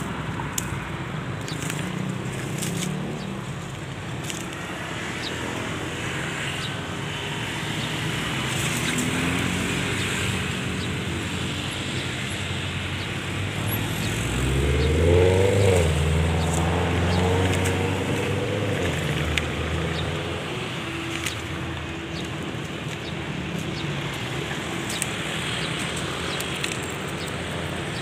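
Motor vehicle engines running in steady traffic. About halfway through, one vehicle passes close, louder, with its engine pitch rising and then falling.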